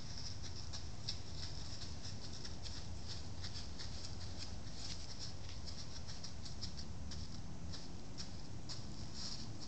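Dry fallen leaves rustling and crackling in irregular light ticks, several a second, over a low steady rumble.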